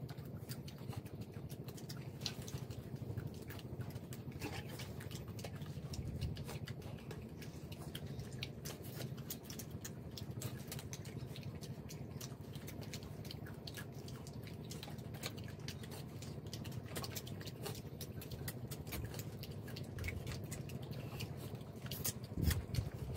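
Small, scattered clicks and crackles of boiled shrimp shells being peeled by hand and chewed, over a steady low hum.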